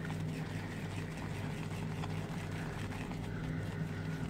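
Shaving brush whisking lather round a scuttle bowl, a soft wet swishing, over a steady low hum.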